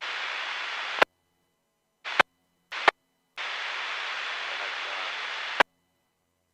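Marine VHF radio squelch opening on keyed transmissions that carry no voice: four bursts of static hiss, each cut off by a sharp squelch-tail click. The first burst lasts about a second, two short ones follow near two and three seconds in, and a longer one runs about two seconds.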